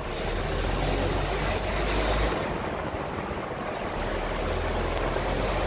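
Vehicle engine and road noise heard from inside the upper deck of a moving double-decker bus. A low engine hum eases off briefly midway, then picks up again.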